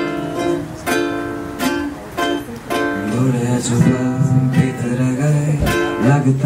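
Live acoustic music in a small room: a plucked string instrument strummed in sharp strokes, joined about halfway in by a low voice singing a wavering melody.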